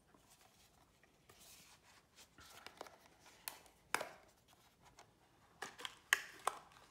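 A small cardboard box with a plastic front being handled and opened by hand: scattered faint clicks and crinkles, a sharper tap about four seconds in, and a cluster of clicks near the end.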